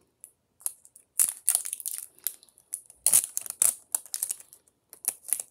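Plastic packaging on a kinetic sand tub crinkling and tearing as it is pulled open, a run of sharp crackles starting about a second in.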